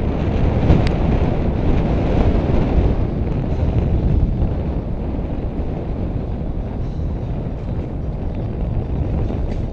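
Wind buffeting a helmet-mounted camera's microphone while riding: a steady low rush of noise, with a brief click about a second in.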